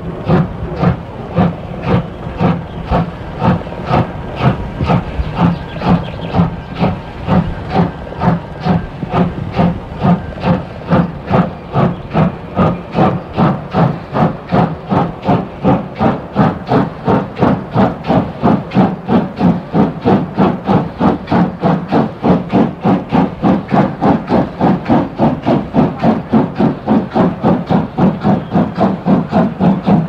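Steam locomotive working hard with a freight train: a steady run of loud exhaust chuffs from the chimney, about three a second, slowly quickening as it gathers speed.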